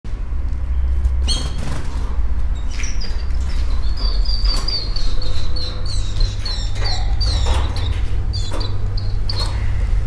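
Canaries chirping: a long run of short, high repeated notes starting about a second in, over a steady low rumble.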